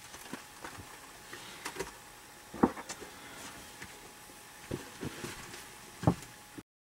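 Quiet rustling and a few soft knocks picked up by a studio condenser microphone as headphones are pulled off and a singer moves about in a vocal booth. The sound cuts off suddenly near the end.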